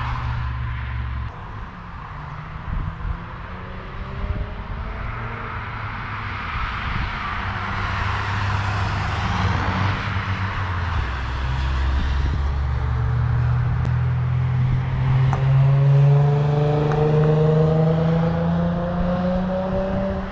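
Cars driving past on a race track one after another. In the second half one car's engine rises steadily in pitch as it accelerates and grows louder.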